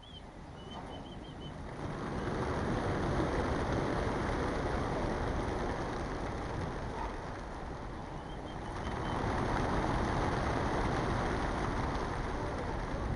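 A large flock of racing pigeons bursting out of a transport truck's crates: a rushing clatter of massed wingbeats that builds about two seconds in, eases a little midway and swells again.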